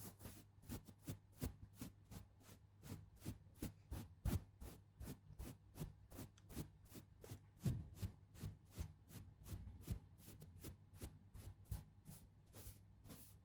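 Makeup ASMR hand sounds close to the microphone: soft, short taps in an even rhythm, about three a second.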